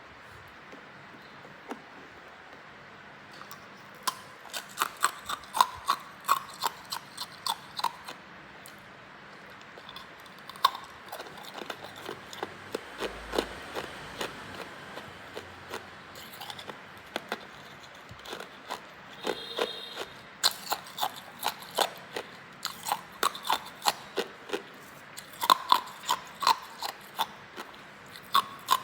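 Hard ice being bitten and chewed close to the microphone: runs of quick, sharp cracking crunches with short pauses between them, after a quieter first few seconds.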